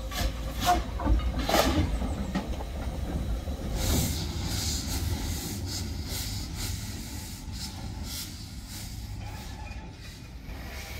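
1887 Krauss steam tram locomotive moving slowly along the track, its engine running with a low rumble. There are a few sharp knocks in the first two seconds, and a hiss of steam about four seconds in.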